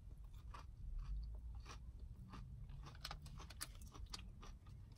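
A person chewing a crispy hash brown close to the microphone: faint, irregular crunches and mouth clicks.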